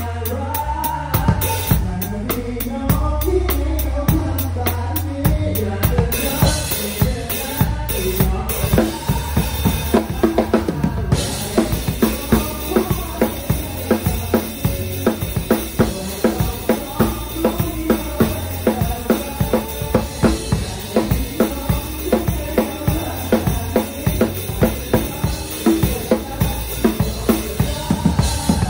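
Drum kit played along to the song's recording: steady bass drum and snare strokes with cymbals, in a driving, regular beat over the band's backing track.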